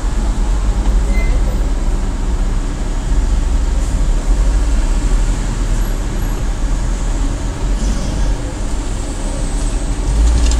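Low, steady rumble of a car's engine and cabin noise picked up by a dashcam as the car idles and creeps forward. It grows louder near the end as the car pulls away.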